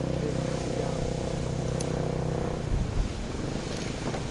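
King Geyser erupting: a steady rush of steam and splashing water. A steady low hum runs underneath and cuts off about two-thirds of the way through, followed by a few low bumps.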